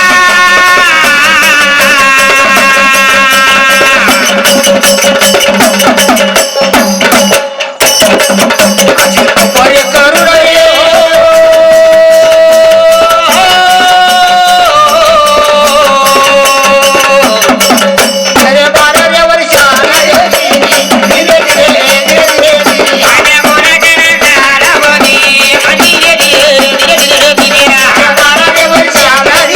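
Loud Indian folk devotional music: held melodic notes over fast, steady percussion with a shaking rattle, briefly dropping out about seven seconds in.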